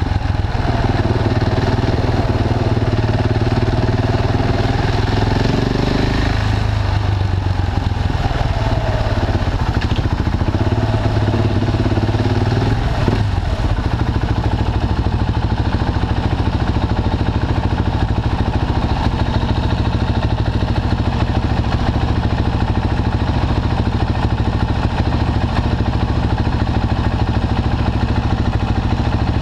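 KTM 690 Duke single-cylinder engine through an Akrapovic slip-on exhaust, pulling at low speed in two short spells of rising revs. From about halfway through it settles to a steady idle.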